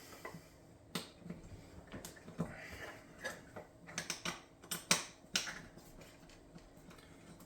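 Irregular small clicks and taps of metal parts being handled and fitted together, as the top rail and its screws go onto a pump paintball marker.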